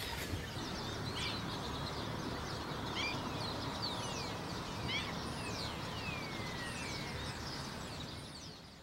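Waterbirds on a marsh calling: many short whistled calls, several sliding down in pitch, over a steady background hiss and rumble. The sound fades out near the end.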